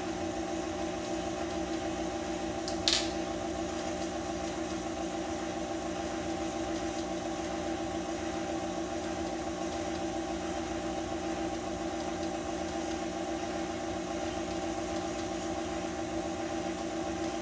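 Electric stand mixer running steadily on speed 2, beating cake batter, its motor giving an even hum. One short sharp sound comes about three seconds in.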